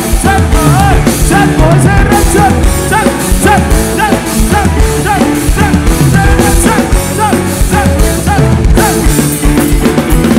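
Live band music through a loud outdoor PA in an instrumental passage: a steady drum beat under a lead instrument playing repeated rising-and-falling bent notes.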